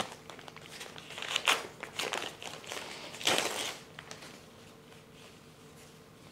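Paper wrapping crinkling and rustling as it is pulled open and unfolded by hand, in several short spells, the loudest about three seconds in.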